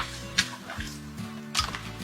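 Background music of steady held notes, with two sharp clicks or knocks, one about half a second in and one near the end.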